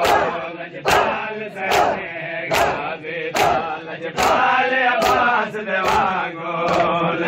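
Men chanting a Muharram noha in unison, cut by a sharp slap of chest-beating (matam) about every 0.8 seconds, in time with the chant.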